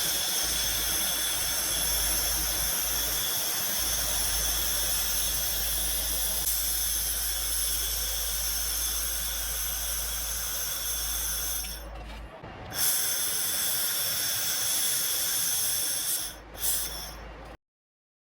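Handheld fiber laser welder in use: a steady hiss of shielding gas and welding, with a low hum underneath. It stops briefly twice in the second half and cuts off sharply near the end.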